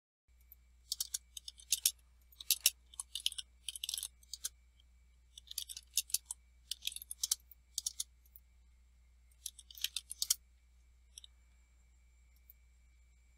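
Computer keyboard being typed on in short bursts of keystrokes with pauses between, over a faint steady low hum; the typing stops about ten seconds in, leaving a few stray clicks.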